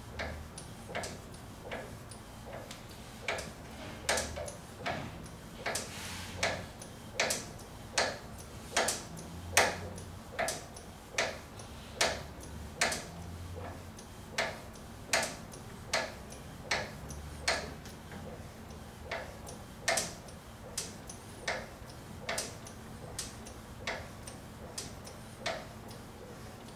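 Girth wrench clicking in a steady ratcheting rhythm, about one and a half clicks a second, as it is worked back and forth to screw a waterjet pump's high-pressure cylinder assembly in clockwise.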